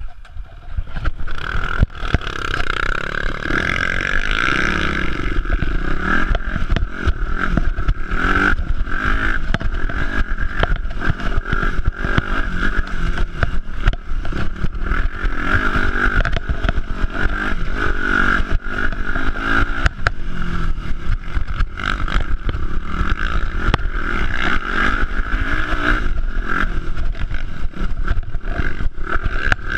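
Dirt bike engine heard close up while riding, its pitch rising and falling with the throttle, with frequent clattering knocks from the bike jolting over a rough, rocky trail.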